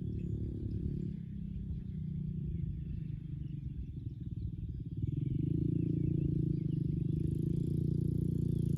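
Four-wheeler (ATV) engine running under way, a steady low rumble that grows louder about five seconds in as it speeds up.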